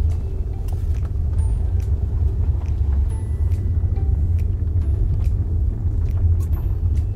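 Low, steady rumble of a car's engine and tyres heard from inside the cabin while driving slowly, with scattered faint clicks.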